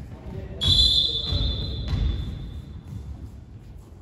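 Volleyball referee's whistle: one long, steady, high-pitched blast that starts about half a second in and fades away over about two seconds, with a few dull thuds around it.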